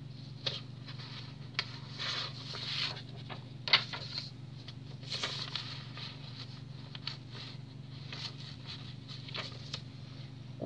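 Paper rustling and being handled: pages of a spiral notebook moving, with scattered light clicks and taps, the sharpest a little under four seconds in. A steady low hum runs underneath.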